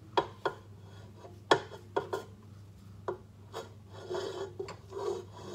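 Wooden spoon scraping and knocking against a stainless steel stand-mixer bowl as cookie dough is stirred by hand, with irregular sharp knocks and a rasping scrape.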